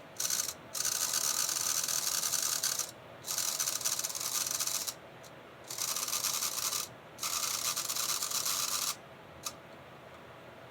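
Burlington GP20 model locomotive's motor and gears running in several short bursts of one to two seconds each, with a rasping high squeal, followed by a click near the end. The squeal comes from gears that were not properly lubricated and have just been given lubricant.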